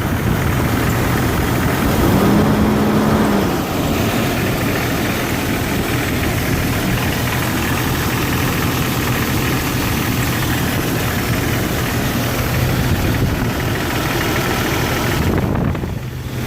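1999 Jeep Cherokee XJ engine idling with a ticking noise that the owner suspects is lifter noise, on a high-mileage engine with good oil pressure. The engine note rises briefly about two seconds in, then settles back to idle.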